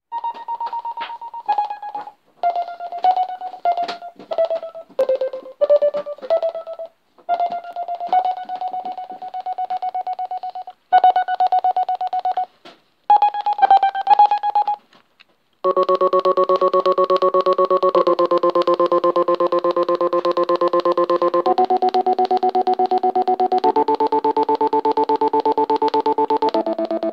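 Casio SK-1 keyboard played through a homemade breadboard LFO circuit that chops its tone into a fast, even pulse. It starts with short single notes and gaps, then about halfway in becomes a held chord drone that steps to a new chord every two or three seconds.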